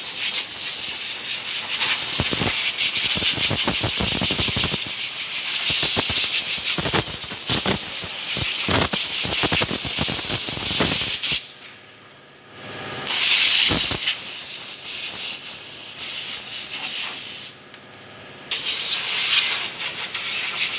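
Long, loud hiss of a pressurised spray being blown over the engine bay to clean it, letting up briefly twice, about twelve and eighteen seconds in.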